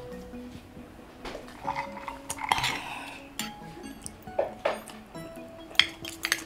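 Fork and spoon clinking and scraping on a plate while eating, with several sharp clinks and a longer scrape about halfway through, over soft background music.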